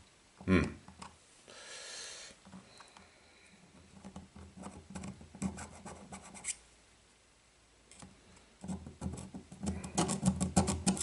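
Hand deburring tool scraping around the inside edge of a bore in a machined metal block, deburring it: irregular runs of short metal-on-metal scratches. After a pause of about a second past the middle comes a quicker, denser run of strokes near the end.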